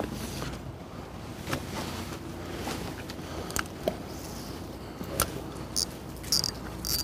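Spinning fishing reel being cranked, its mechanism clicking in short bursts that start near the end, over a steady low hum and a few scattered clicks.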